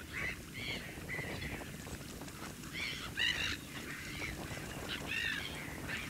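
Wild waterbirds giving short calls again and again over a steady low rumble of wind on the microphone.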